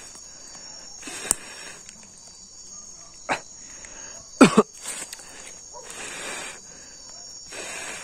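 Steady chorus of crickets and other night insects. Over it come handling sounds from a pile of wet leaves and sticks: a few sharp snaps, the loudest a pair of them about halfway through, and short bursts of rustling.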